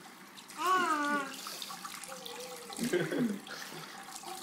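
Tap water running and splashing into a bathroom sink as hands wash in it. A child's high, wavering voice comes in loudly about a second in, with shorter voice sounds near three seconds.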